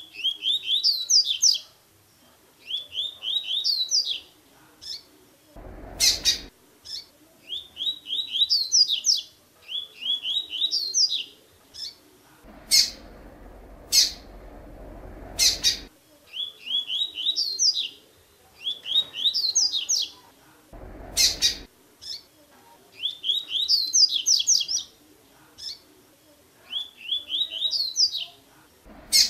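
Double-collared seedeater (coleiro) singing the 'tui tui' song: a phrase of quick rising whistled notes that climbs to a few higher notes, repeated over and over, mostly in pairs a couple of seconds apart. Loud, sharp clicks fall in the gaps between the pairs.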